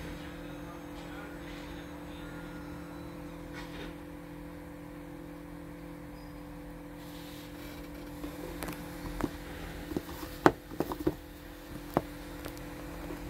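Split-rim truck tire making a string of sharp, irregular pops and cracks over the last few seconds, the loudest a little past the middle, as it is aired up and the rim and bead seat.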